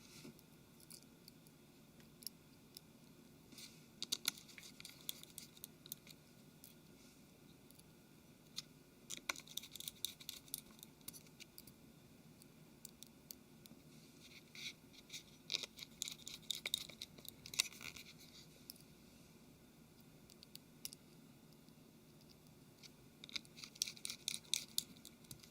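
Faint clicks and scratches of a small Phillips screwdriver turning tiny screws into a smartphone's frame. They come in several short bursts with quiet in between.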